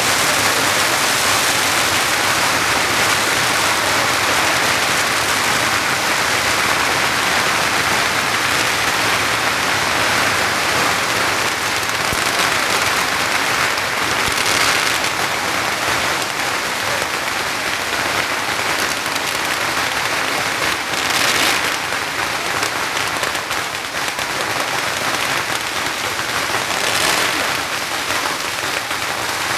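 A long string of firecrackers going off in a dense, continuous crackle, with a few brief louder surges about halfway through and near the end.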